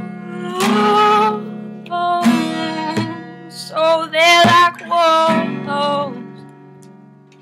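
Acoustic guitar chords strummed and left ringing, with a wordless sung vocal line over them in the middle; the playing then dies away as the song ends, the last chord fading out.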